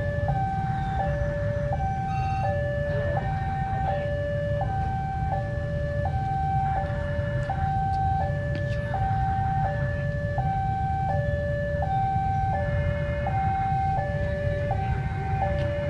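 Indonesian railway level-crossing warning alarm sounding its two-tone signal, a higher and a lower tone alternating evenly, each held about three-quarters of a second, which warns that a train is approaching. Under it runs a steady low rumble.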